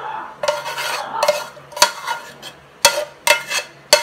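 A utensil scraping sauced penne out of a metal pot into a glass baking dish, broken by four or five sharp knocks of utensil and pot in the second half.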